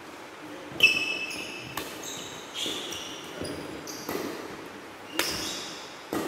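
Badminton doubles rally in a large hall: a shuttlecock smacked back and forth by rackets, about seven sharp hits roughly a second apart, the loudest about a second in. Between hits, shoes squeak briefly on the synthetic court mat.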